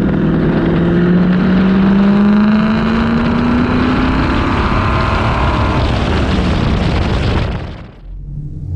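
Car engine running under acceleration, its pitch slowly rising over the first few seconds, with heavy road and wind noise, then cutting off abruptly near the end.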